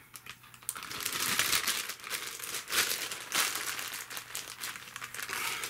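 Clear plastic zip-top bag crinkling and crackling irregularly as it is handled with the super glue tube inside, starting after a quieter first moment.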